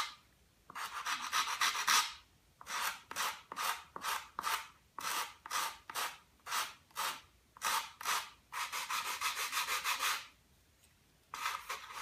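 Sandpaper rubbed back and forth over a model glider wing in quick scraping strokes, about three a second, in runs broken by short pauses.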